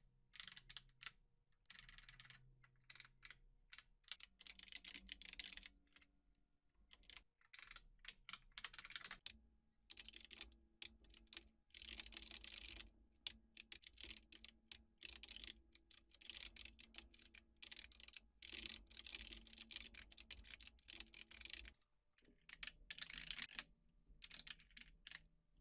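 Faint computer keyboard typing, quick runs of keystrokes broken by short pauses.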